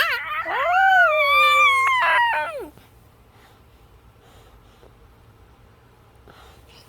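A pet's single long, high whining call, rising then falling and lasting nearly three seconds.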